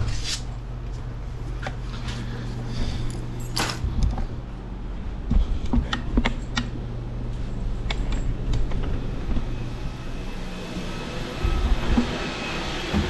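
Stick vacuum cleaner running, its motor whine growing louder over the last few seconds as it comes nearer, with scattered knocks and clicks.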